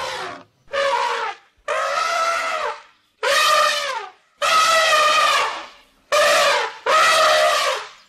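Elephant trumpeting: a quick run of about seven separate calls, each half a second to a second and a half long with short gaps between, several sliding down in pitch at the end.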